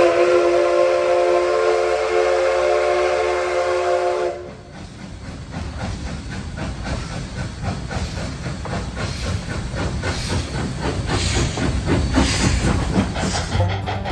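Narrow gauge steam locomotive No. 489, a K-36 2-8-2, sounds its chime whistle in one steady blast of about four and a half seconds. Then its exhaust beats, hissing steam and wheel clatter take over as the train works past.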